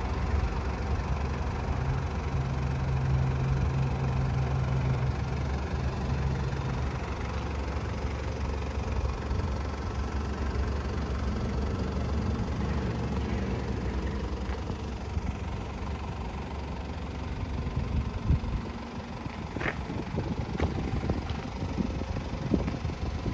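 Toyota 1KZ-TE 3.0 L turbo diesel engine idling steadily, strongest in the first several seconds, with a few light knocks near the end.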